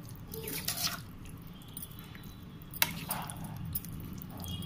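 A spoon stirring curd-soaked vermicelli and tempering in a bowl: wet, soft stirring sounds with a few clicks of the spoon against the bowl, the sharpest about three seconds in.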